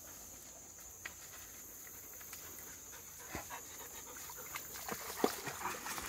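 Dogs panting as they trot over a creek sandbar, with soft footfalls and small splashes as one wades into shallow water near the end.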